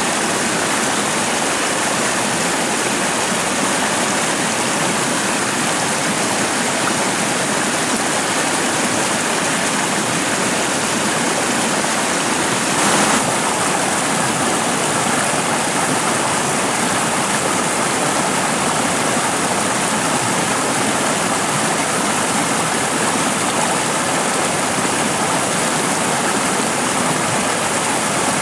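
A stream's running water rushing steadily, with a brief louder surge about thirteen seconds in.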